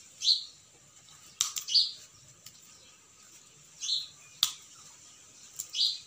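House sparrows chirping: four short, separate chirps, with two sharp clicks between them.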